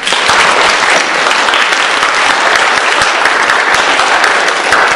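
Audience applauding, a dense, even clapping that starts at once.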